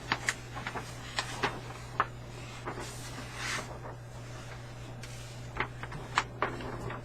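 Paper rustling and crackling with scattered light clicks and taps as a large folded poster is handled, over a steady low electrical hum.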